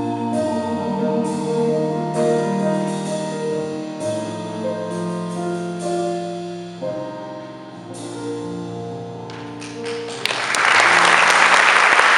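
Piano accompaniment plays the closing bars of a song, struck notes ringing and fading, then an audience breaks into loud applause about ten seconds in.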